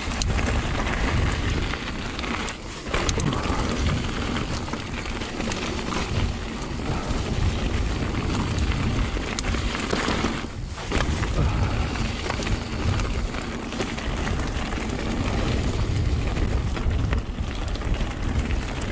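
Full-suspension mountain bike (a 2021 Giant Trance) running fast down a loose gravel trail: tyres crunching over stones, with clicks and rattles from the bike and a heavy low rumble of wind on the microphone. The noise eases briefly twice, near 3 s and near 11 s.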